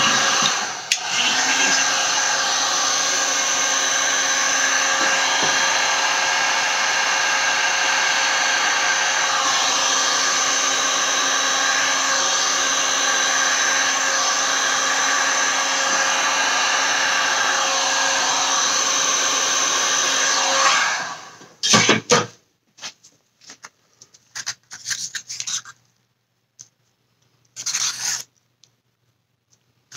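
Heat gun running steadily with an even blowing hiss and a fan hum, switched off about 21 seconds in. Afterwards, a few short scrapes of a stir stick in a plastic cup.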